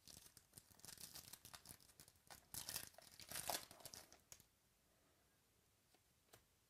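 A trading-card pack wrapper being torn open and crinkled by hand, in faint crackling rustles that are loudest around the middle and stop a little past four seconds in.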